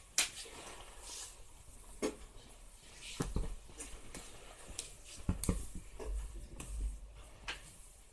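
Soft, irregular thumps and rustles of kittens pouncing and scrambling on a blanket after a dangled feather wand toy, about a dozen scattered taps with no meowing.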